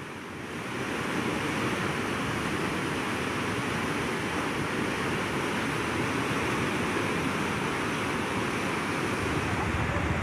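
Swollen river floodwater rushing past a low bridge, a steady noise of churning water that comes up over the first second.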